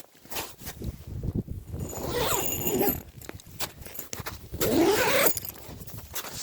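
Footsteps crunching and squeaking in snow on a frozen pond, irregular steps with two louder scuffing, squealing stretches about two and five seconds in.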